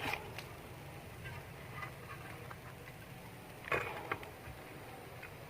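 Small wood cooking fire crackling, with scattered light ticks and pops and one louder crackle nearly four seconds in.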